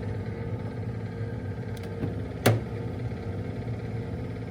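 Steady electric hum of a running heater unit, with one sharp knock about two and a half seconds in.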